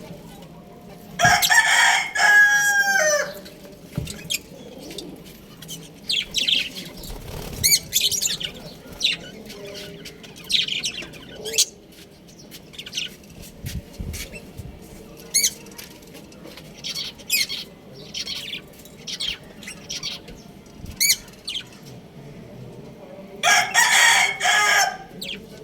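Budgerigars chirping in many short calls, while a rooster crows twice, once near the start and once near the end. The crows are the loudest sounds.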